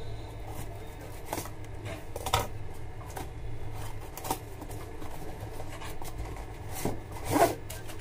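Scissors snipping at the taped top of a cardboard box, then cardboard flaps rustling and scraping as the box is opened and its contents pulled out. The loudest scrape comes about a second before the end.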